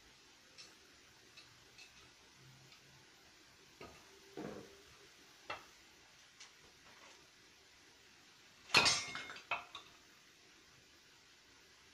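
Metal car parts being handled on a concrete floor: scattered light clicks and knocks, then a loud metallic clatter followed by a few knocks about nine seconds in, as car shock absorbers are set down and knocked together.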